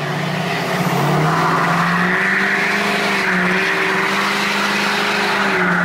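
Ford F-250 6.7 Powerstroke diesel pickup accelerating hard under full throttle. The engine note climbs about a second in, then holds steady, dropping slightly near the end.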